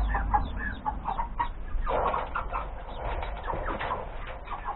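Chickens clucking in a coop: a run of short, separate calls, with a rustle of straw and feathers about two seconds in.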